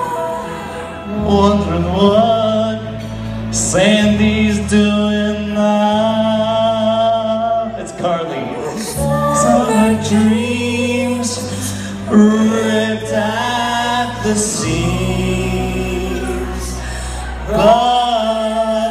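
A man and a woman singing into microphones over a recorded backing track with a steady bass line, the voices trading and overlapping as in a duet.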